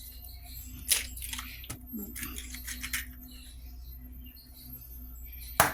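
Eggs being cracked for cornbread batter: a sharp tap of shell on the bowl about a second in, shell crackling over the next couple of seconds, and another sharp tap near the end, with background music.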